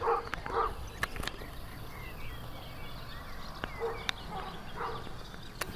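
Outdoor ambience with a few faint, short distant calls and small chirps over a steady background, and a few sharp clicks.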